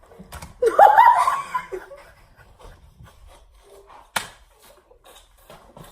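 A person's high, rising squeal of laughter about a second in, then a single sharp knock a few seconds later.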